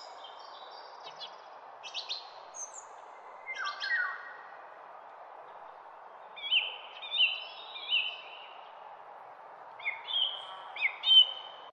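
Small birds chirping in short repeated phrases, loudest in clusters of quick notes about six to eight seconds in and again near the end, over a steady even hiss.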